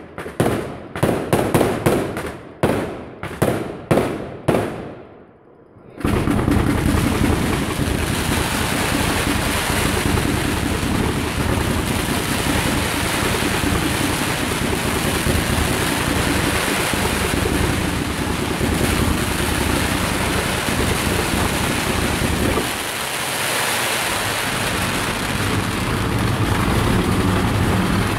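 Festival fireworks: a quick series of loud bangs about every half second. About six seconds in, an unbroken dense crackle of firecrackers begins and keeps going.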